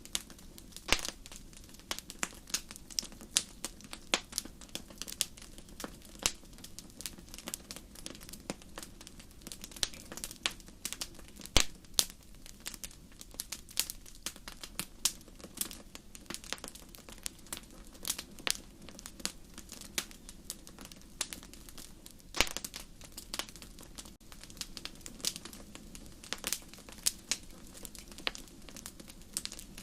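Campfire crackling: burning wood gives off irregular sharp snaps and pops over a low steady rumble, with a couple of louder pops, about a third of the way in and again near two-thirds.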